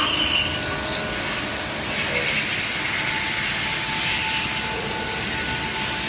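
Multi-station rotary turntable machining machine with 8 stations and 12 spindles running, a steady mechanical noise with a faint steady whine through it.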